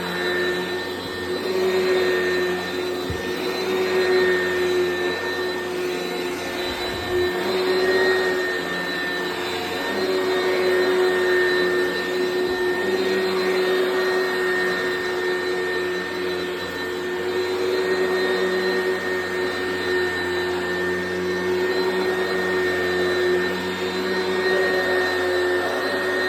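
Oreck XL Commercial upright vacuum cleaner running with a steady whine, its loudness swelling and dipping by turns as it is worked.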